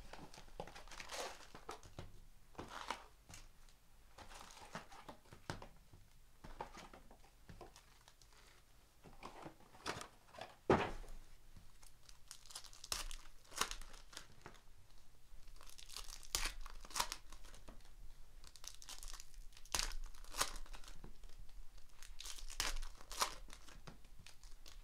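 Foil-wrapped 2017-18 Donruss basketball card packs crinkling and rustling in the hands as they are taken from the box and stacked, in a run of short, sharp crackles. One louder knock comes about eleven seconds in.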